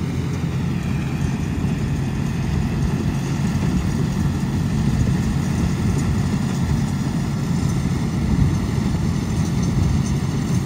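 Diesel engine of a John Deere tractor running steadily under load, driving a tractor-drawn straw reaper that cuts wheat stubble into chaff and blows it into a trailer; the engine and the machine's whirring make one continuous mechanical sound.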